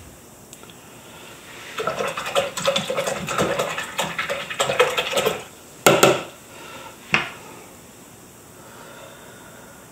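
A quick run of scraping and clinking of small hard things for about three and a half seconds, then a couple of sharp knocks.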